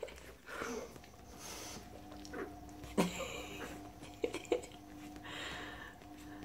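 Chihuahua puppy snuffling and making small sounds as it wriggles and mouths at a hand, with rustling of a fleece blanket and a sharp click about three seconds in.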